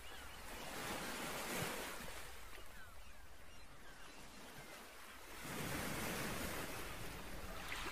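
Soft outdoor ambience of a pond: a steady, even hiss that swells gently a couple of times, with a few faint chirps.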